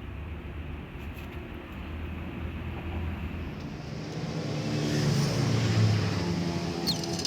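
A motor vehicle's engine swelling in level over a couple of seconds and then easing off, as of a vehicle passing by, over a steady low hum.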